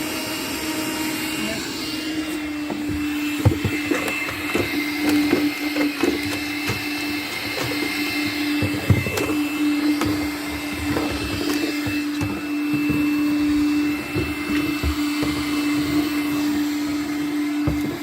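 Makita 18-volt cordless vacuum running steadily with a motor hum and a high whine, with frequent clicks and rattles through the middle as it picks up debris.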